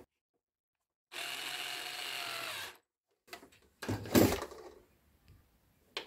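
Electric screwdriver running steadily for about a second and a half, driving in the screw of the projector's lamp compartment door. A few short knocks follow as the plastic projector is handled and set down, the loudest about four seconds in.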